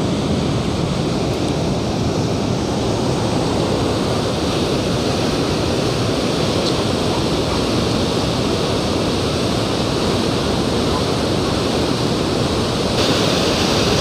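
A large waterfall: water cascading over rock ledges and churning in the pool below, a steady, loud rush, brighter and hissier near the end.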